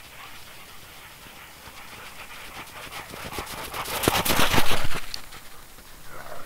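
Two dogs, a boxer-type and a blue merle Australian shepherd, galloping through snow. Their paws crunch and thud in quick succession, growing louder as they come near and loudest about four to five seconds in as they pass close by, then fading.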